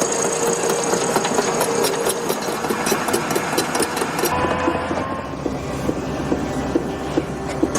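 A machine engine running, with a rapid clatter of ticks over it; the sound changes abruptly about four seconds in, when a steady low hum comes in.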